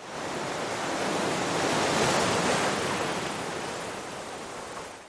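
Ocean surf: a steady rush of waves that swells to its loudest about two seconds in, then fades away.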